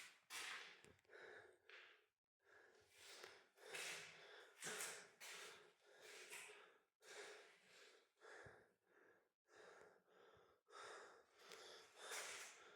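Faint breathing close to the microphone, a soft breath roughly every second, in and out.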